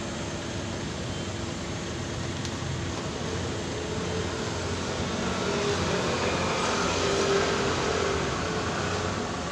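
Steady background road-traffic noise with a faint steady hum, swelling a little as a vehicle passes about six to eight seconds in.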